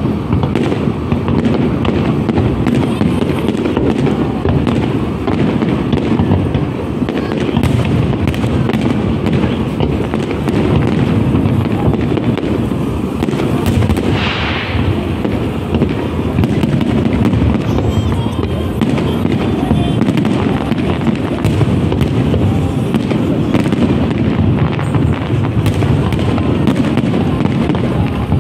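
Aerial fireworks bursting in a dense, continuous barrage: overlapping booms with crackling throughout.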